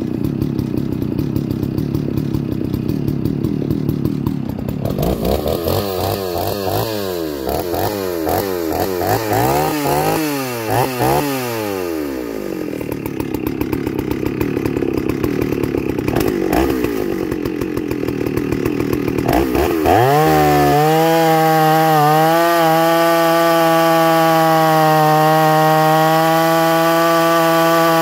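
Two-stroke chainsaw with a 36-inch bar and full-chisel chain, revved up and down several times, then about twenty seconds in brought up to full throttle and held at a steady high pitch as it cuts into a green hardwood log.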